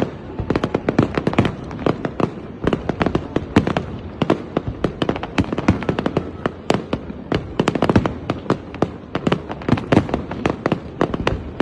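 Fireworks display going off in a rapid, dense barrage of bangs and crackles, many shells bursting each second with a rumbling echo between them.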